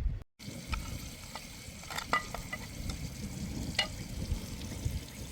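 Food sizzling in a pan while being stirred, with a few sharp clinks or scrapes.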